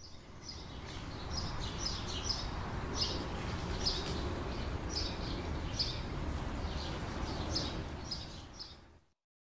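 Small birds chirping outdoors: short, high chirps repeating about once or twice a second over a steady low background noise, fading out near the end.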